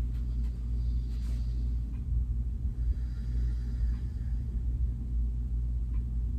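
Steady low background rumble, a constant hum with no clear events.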